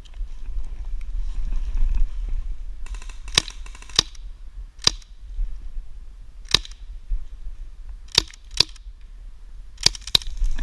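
Airsoft guns firing: about eight sharp cracks at irregular intervals, some in quick pairs, over a steady low rumble.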